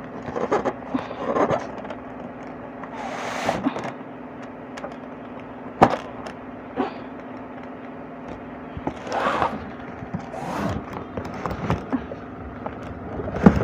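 Packaging being handled and pulled at while trying to open a hard-to-open item: irregular rustling and scraping, with a few sharp clicks or knocks, the loudest about six seconds in and near the end. A steady low hum runs underneath.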